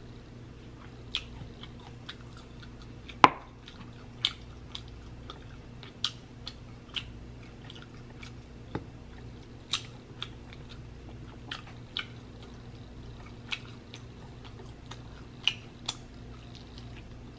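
Close-miked eating sounds from sticky, sauce-covered beef ribs being pulled apart and chewed. Sharp wet clicks and smacks are scattered throughout, the loudest about three seconds in, over a faint steady low hum.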